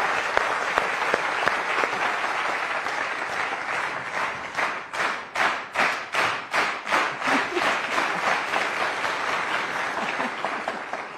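Studio audience applauding. About halfway through, the clapping falls into a rhythm of about three claps a second for a few seconds, then breaks up again into loose applause that thins toward the end.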